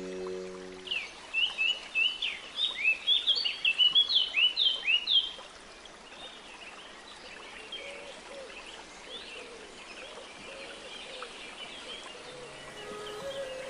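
Small birds chirping: a quick, dense series of sharp sweeping chirps for about four seconds, then fainter, scattered chirps. Soft sustained music tones come back near the end.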